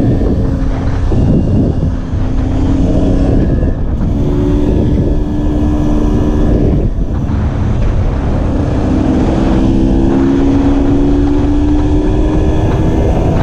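Two-stroke enduro motorcycle engine heard from on board while riding, its note climbing and dropping back at gear changes about one, four and seven seconds in, then climbing steadily. Heavy wind noise on the microphone.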